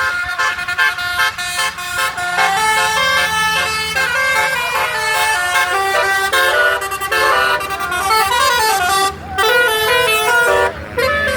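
Telolet basuri musical bus horn playing a melody: a quick run of stepped notes, with sliding, wavering notes in the last few seconds and two brief breaks.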